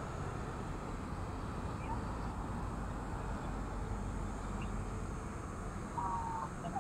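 Faint, steady low rumble of road traffic, with a brief faint high note about six seconds in.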